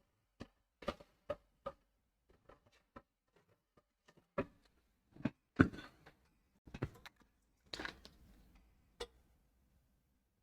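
Irregular small clicks and knocks of tools and parts being handled on a workbench, the loudest knock about halfway through, with a brief rustle a couple of seconds later.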